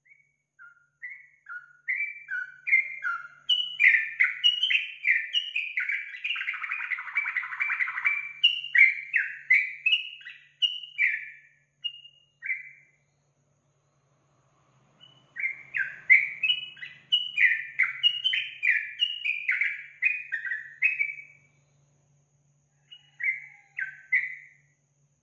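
Yellow-vented bulbul (trucukan) singing fast runs of short, bubbling notes. A long burst of about twelve seconds is followed by a pause of a couple of seconds, then a burst of about six seconds and a short final phrase near the end.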